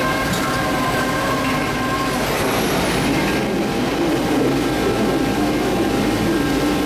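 Panama Canal electric towing locomotive running along the lock-wall track, a steady mechanical hum and whine. Its higher whining tones fade about two seconds in, leaving a lower wavering tone.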